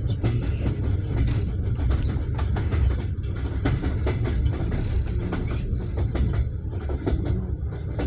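Passenger train wheels clattering over the rail joints, heard inside an open-plan sleeper carriage: a steady low rumble with short clicks running through it.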